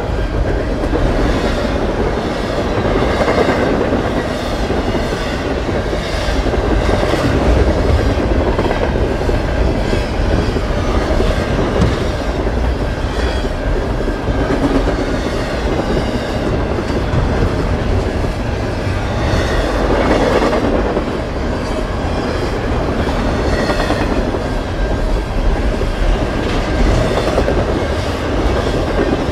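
Double-stack intermodal container train passing close at speed: the steady, loud noise of its wheels running on the rails and its cars rolling by.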